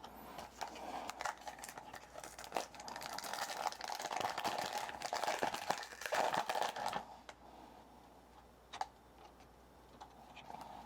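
A foil trading-card pack wrapper being torn open and crinkled: several seconds of dense crackling, then a few isolated soft clicks near the end.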